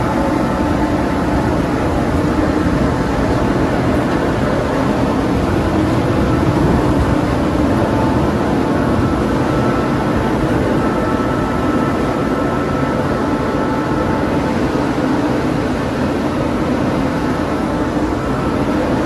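Chairlift terminal machinery running: a steady mechanical hum from the bullwheel and haul rope as a chair rides out of the terminal. A faint thin whine joins in for a few seconds around the middle.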